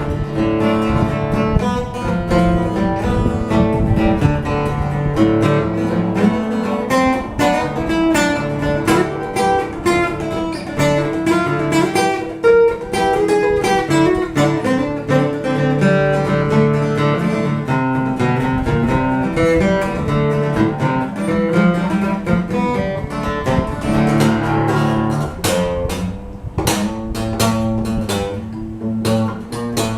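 Instrumental break of an Appalachian folk tune played on plucked acoustic strings, a fast run of picked notes that thins to a few separate plucks near the end.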